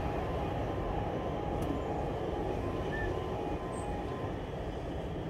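Level crossing alarm sounding in alternating short pips on two pitches, about two a second, over the fading rumble of a train that has just passed; the alarm stops about four seconds in as the barriers rise.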